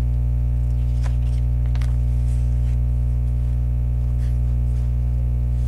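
Steady electrical hum, with a few soft rustles and scrapes of a picture book's paper page being turned and smoothed flat, mostly between one and two and a half seconds in.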